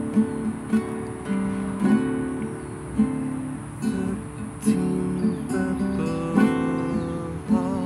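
Acoustic guitar strummed and picked in a steady rhythm: an instrumental passage of a song, with no singing.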